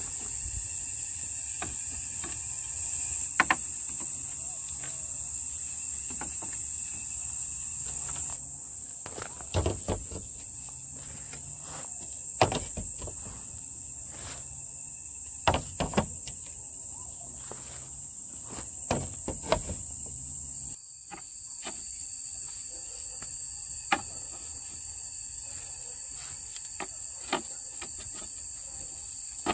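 A steady, high-pitched insect drone, typical of crickets or cicadas, broken by a dozen or so sharp knocks and taps at irregular times.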